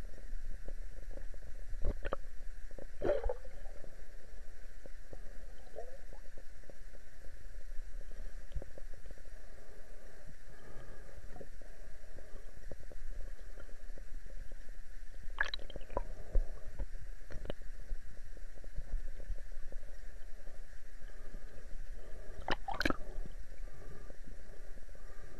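Underwater sound picked up by a submerged camera: a steady low rumble and hiss of the water, broken by a few sharp clicks, about two and three seconds in, a cluster around the middle, and a louder one near the end.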